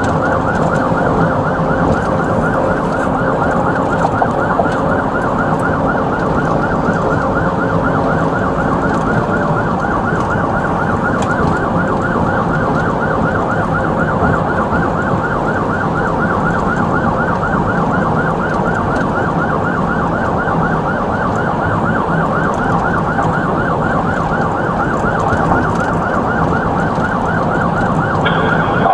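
Emergency siren cycling in a fast, steady yelp, its pitch sweeping several times a second, heard from inside a police patrol car's cabin over a low, steady rumble.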